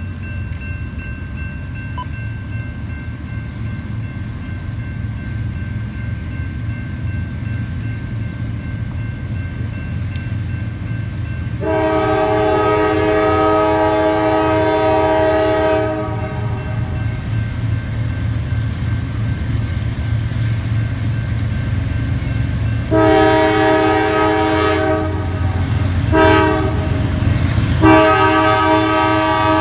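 Approaching diesel freight locomotive sounding its multi-note air horn in the grade-crossing pattern: a long blast about twelve seconds in, then further long and short blasts from about twenty-three seconds in. Under the horn, the engine's low rumble grows louder as the train nears, over the steady ringing of the crossing bell.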